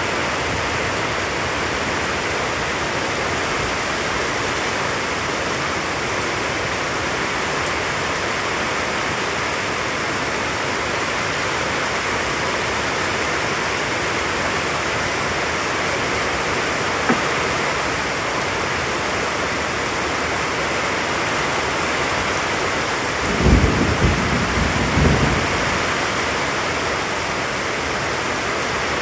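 Steady rain of a rainforest storm, with a brief low rumble of thunder late on and a single sharp tick a few seconds before it.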